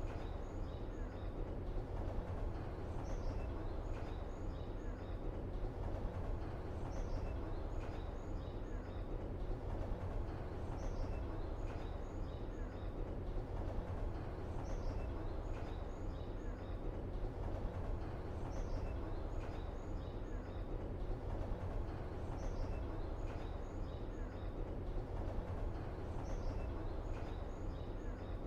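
Steady low rumble of background ambience with a short, high chirping call that repeats identically about every four seconds, seven times, as if the same few seconds were looped.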